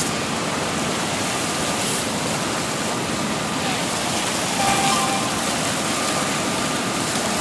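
Steady rush of a river in heavy flow: water pouring over a dam spillway and churning through rapids, running high and fast.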